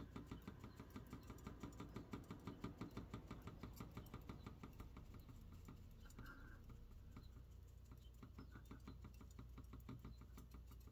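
Faint, quick patting of a makeup applicator against the face, about four taps a second, as cream makeup is blended into the skin. The taps are loudest a couple of seconds in and then grow softer.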